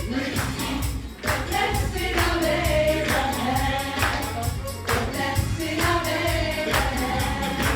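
A choir singing a gospel worship song with band backing, over a steady beat with a jingling tambourine.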